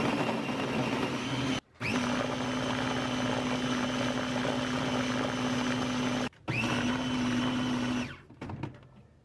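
Nutribaby+ baby food maker's blender motor running steadily, pureeing steamed sweet potato chunks into a smooth mash. It runs in three stretches with brief breaks between them, spinning up again at each restart, and stops about eight seconds in.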